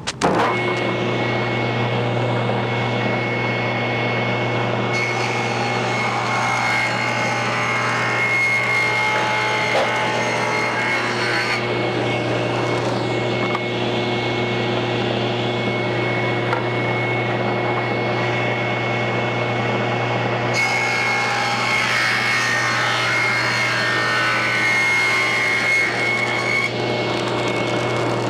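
Table saw starting up and running with a steady hum and high whine. Twice the blade rips through a wood strip fed along the fence, about six seconds each time. The second pass reverses the first to cut an L-shaped picture-frame profile.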